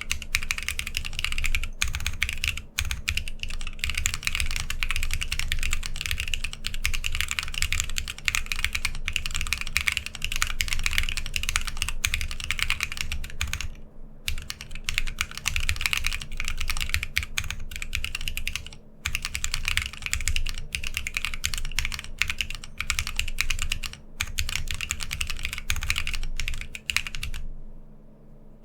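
Continuous typing on a TGR x Linworks Dolice 60% Alice-layout mechanical keyboard: sandwich-mounted, with a polycarbonate plate, stock KLC Rubrehose Brown switches and PBT keycaps. It gives a dense, clacky run of keystrokes, with brief pauses about 14 and 19 seconds in and a lull near the end.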